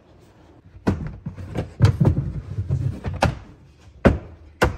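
A run of knocks and clatter of hard objects for about two and a half seconds, followed by two sharp bangs about half a second apart near the end.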